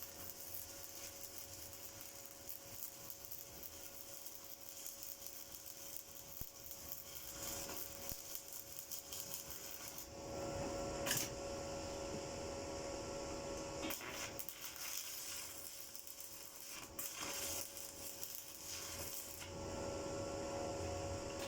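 Stick (shielded metal arc) welding with a 1/8" 7018 electrode on 1/2" steel plate: the arc gives a continuous crackling sizzle over a steady hum. It gets louder about ten seconds in.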